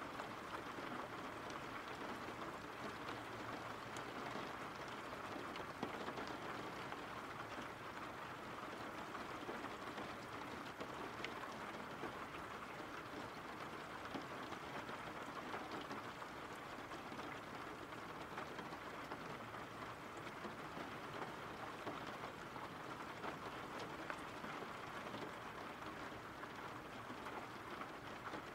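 Steady rain falling: an even hiss of rainfall with scattered drop ticks.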